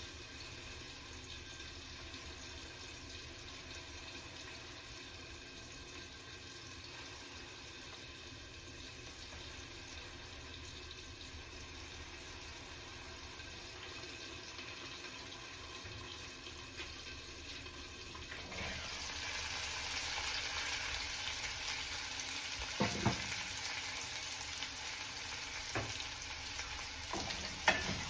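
A faint steady hiss, then about two-thirds of the way through a sudden loud sizzle as potatoes frying in hot oil start up and keep going. A few sharp knocks of a utensil against the pan come near the end.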